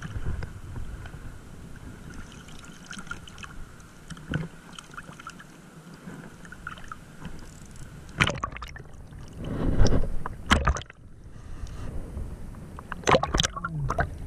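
Shallow seawater lapping and sloshing against a hand-held camera at the surface, with short bursts of splashing and dripping about eight, ten and thirteen seconds in as the camera breaks the surface.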